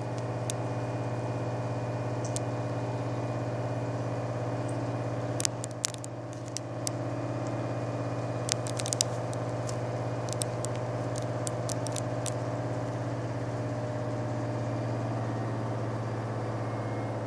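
Steady engine hum made of a low tone with even tones stacked above it. Scattered sharp clicks and crackles break it, a few about a third of the way in and a run of them around the middle.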